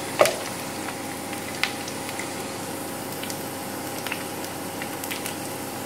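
Batter-coated bitter gourd slices deep-frying in hot oil: a steady sizzle with scattered pops and crackles, a sharper pop just after the start and another about a second and a half in.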